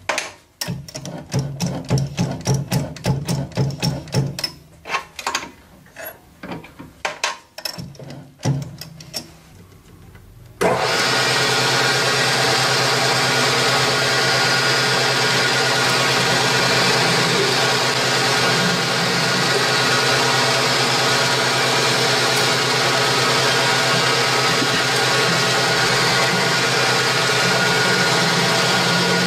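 Small lathe hobbing a gear, the cutter meeting the blank in a run of irregular clicks and knocks over a low hum. About ten seconds in the sound changes abruptly to the lathe spinning steadily at speed, a loud even machine hum with several fixed tones, while a tool cuts a thread on a turned part.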